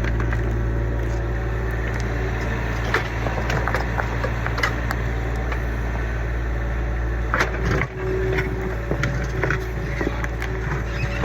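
Kubota U25 mini excavator's diesel engine running steadily, with scattered cracks, clanks and crunches as the bucket digs and breaks through old barn footing debris.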